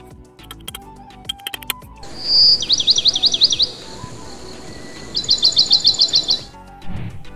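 A songbird calling: a short whistle, then a fast trill of down-slurred notes, and after a pause a second rapid run of short chirps. Light background music plays at the start, and there is a soft low thump near the end.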